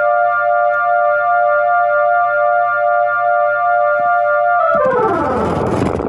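Casio keyboard playing an electronic siren sound effect: a loud, steady tone of several pitches with a slight flutter. Near the end it sweeps steeply down in pitch and cuts off.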